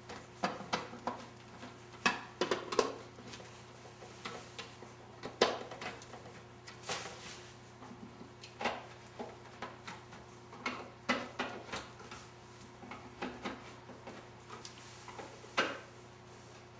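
Phillips screwdriver turning cam-lock fasteners to lock a wooden furniture top onto its side panels, with irregular clicks and knocks of the screwdriver and panels being handled, a dozen or more through the stretch.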